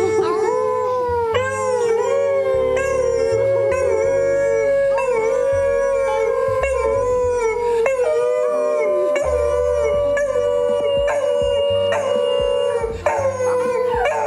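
Beagle howling: one long, wavering howl after another, with two people howling along with it.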